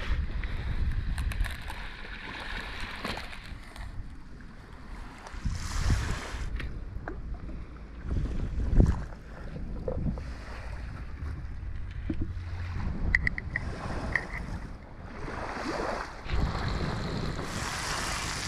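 Wind buffeting the microphone over waves washing on the shore, with a few short light clinks of camp cookware about two-thirds of the way through.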